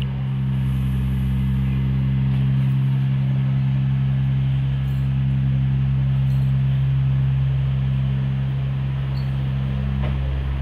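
Diesel engine of TCDD railcar MT 15401 running with a loud, steady low drone that does not change in pitch.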